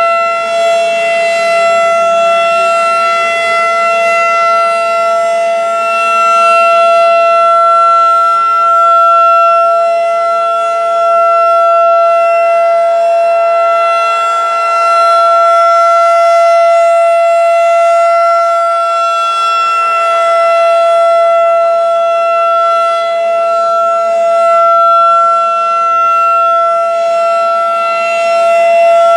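Federal Signal 2001-DC roundback outdoor warning siren sounding a steady tone during a test: a chord of several notes held at constant pitch, its loudness swelling and fading slowly.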